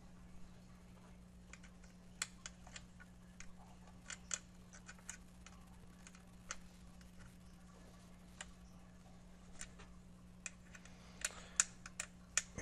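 Light, irregular clicks and ticks of a small metal tool turning the hinge screw of a plastic SmartiPi Touch case stand to tighten it, with the loudest clicks near the end.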